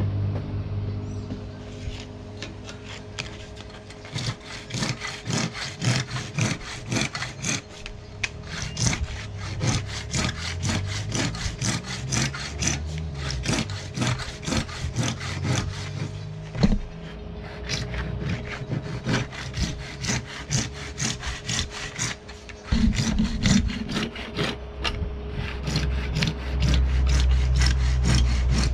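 Wood being worked by hand with quick, regular back-and-forth strokes, about two to three a second, as in hand sawing.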